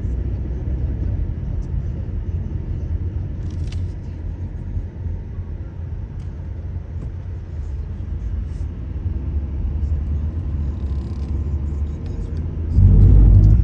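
Steady low road and engine rumble of a moving car heard from inside, with a sudden, much louder low rumble lasting under a second near the end.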